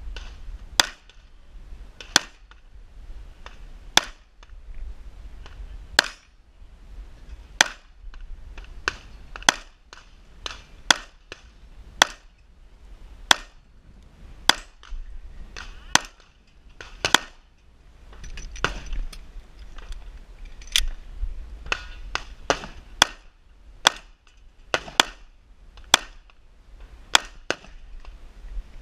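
Semi-automatic pistol firing a long string of single shots, dozens in all, irregularly paced at roughly one to two shots a second with some quicker pairs.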